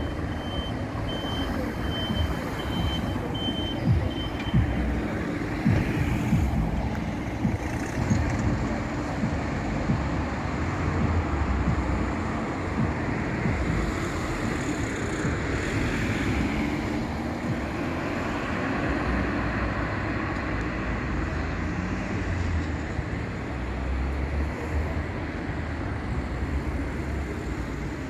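A vehicle's reversing alarm beeps at one high pitch, evenly spaced, and stops about five seconds in. Steady engine and street noise from vehicles manoeuvring runs underneath.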